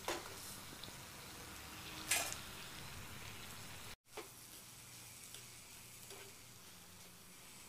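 Chopped banana stem frying in a hot earthenware pot: a steady soft sizzle, with a few short scrapes and clacks of the spatula against the pot as it is tipped in and stirred. The sound drops out for an instant about four seconds in.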